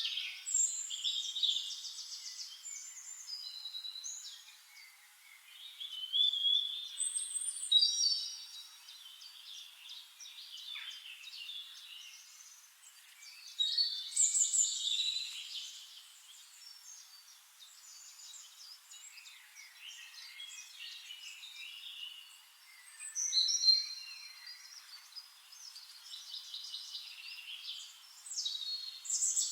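Several wild birds singing and calling at once: overlapping chirps, trills and whistled phrases, with louder bursts of song every several seconds.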